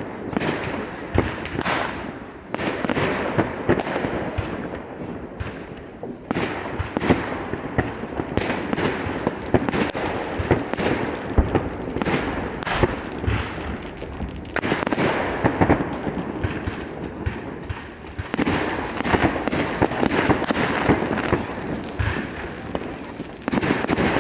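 Fireworks going off without pause: sharp bangs several times a second over continuous crackling, building to a denser, louder barrage about eighteen seconds in and again near the end.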